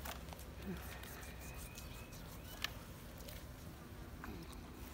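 Raw cow tripe being cut with a knife and handled over a plastic bucket: a few faint, sharp clicks and taps with quiet gaps between them.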